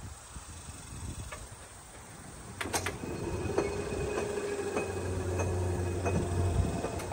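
Railroad crossing gate mechanism raising its gate arm: a clunk about two and a half seconds in, then the motor and gearing run with a steady hum while the arm lifts from horizontal toward upright.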